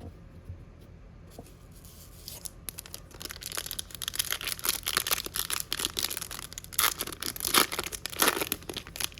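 Foil trading-card pack wrapper being torn open and crinkled, a dense rapid crackling that starts about two seconds in and is loudest in the second half.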